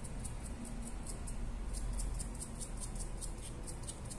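Small stencil brush dabbing and scrubbing paint onto EVA foam: a quick, even run of faint scratchy ticks, about six a second, over a low steady hum.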